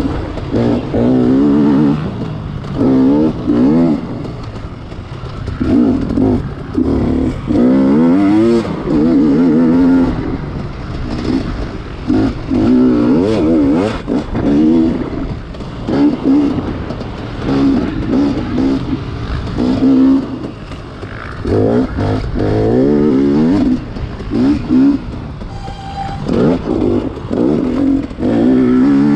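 Off-road racing motorcycle engine on a cross-country lap, revving up and easing off over and over, each surge climbing in pitch, with rough clatter underneath.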